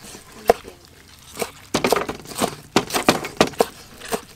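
Cleaver chopping wood ear mushrooms on a thick wooden chopping board. Two single knocks come first, then a little under two seconds in a quick, even run of chops, about four a second.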